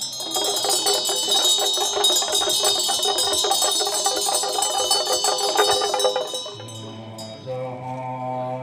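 Tibetan cham ritual music: ringing metal percussion comes in suddenly and is struck in a fast, dense roll for about six seconds. It then gives way to a low steady drone.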